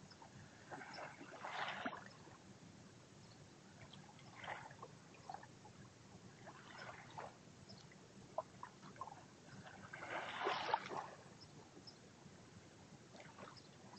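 Small waves lapping onto a sandy, shelly beach: a faint wash about a second long every few seconds, with a few light ticks in between.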